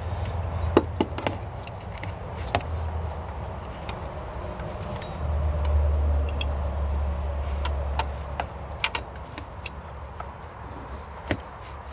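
Scattered sharp metallic clicks and clinks of hand tools and parts being worked around the idler pulleys in a diesel truck's engine bay, over a low rumble that swells twice.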